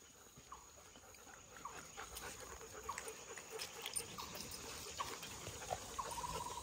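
A dog whining faintly in short high squeaks about twice a second, then one longer steady whine about six seconds in.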